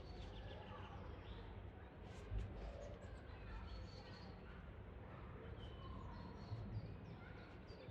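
Faint outdoor ambience: distant voices and scattered bird chirps over a steady low rumble, with a single low thump about two seconds in.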